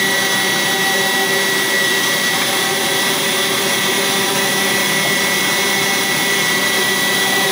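Electric stand mixer motor running steadily while kneading bread dough, a constant motor noise with a steady high whine.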